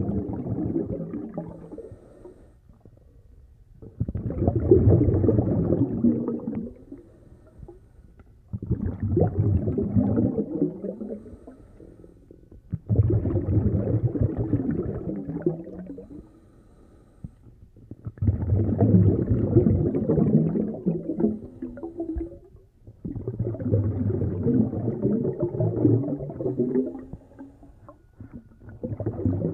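Underwater, a diver's exhaled air bubbles rumbling and gurgling in regular bursts, one every four to five seconds, each lasting two to three seconds, with quiet gaps between breaths.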